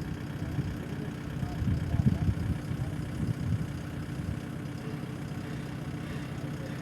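Diesel engine idling steadily, with a louder, uneven stretch of low pulsing from about one and a half to three and a half seconds in.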